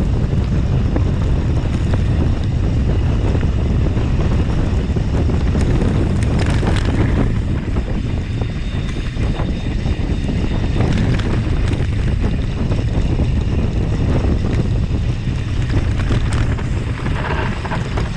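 Heavy wind buffeting the microphone over the steady rumble and rattle of a mountain bike rolling fast down an off-road trail, with scattered small knocks.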